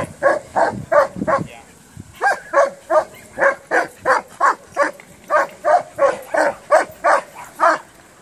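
Dog barking over and over in a steady rhythm, about three barks a second, with one short pause about one and a half seconds in.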